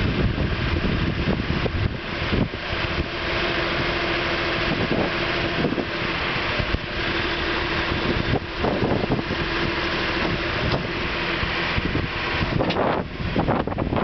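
John Deere 710D backhoe's diesel engine running as the hydraulics lift the boom and bucket, with a steady hum holding from about four seconds in until near the end.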